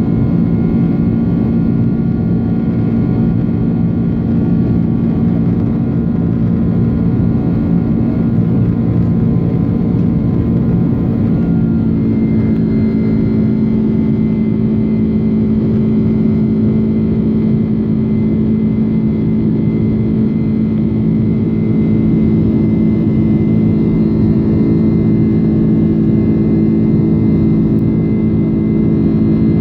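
Jet airliner engines heard from inside the cabin while climbing out after takeoff: a loud, steady drone with humming tones, whose pitch pattern shifts a little about twelve seconds in.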